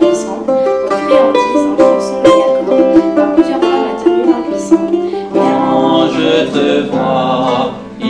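A small Renaissance-style guitar plucked in a melody of clear single notes. About five seconds in, singing voices come in over it.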